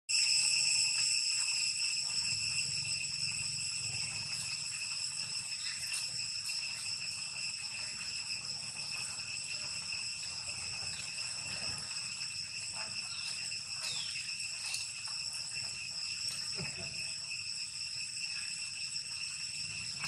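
Insects droning in several high, steady tones, with a few faint short squeaks about two-thirds of the way in.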